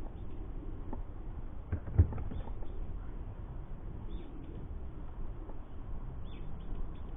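Outdoor ambience with a steady low rumble and a few short, faint high chirps that sound like birds. A single sharp knock about two seconds in.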